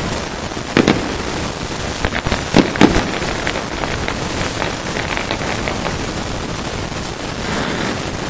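Aerial fireworks bursting: a few loud bangs in the first three seconds, followed by a run of fainter crackles over a steady hiss.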